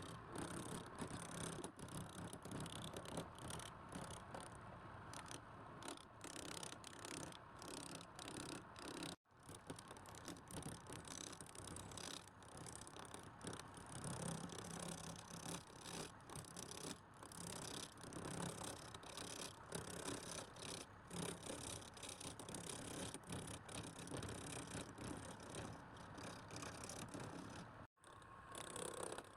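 Continuous rough, rasping scraping noise with a rapid flutter, broken by two sudden cuts, about nine seconds in and near the end.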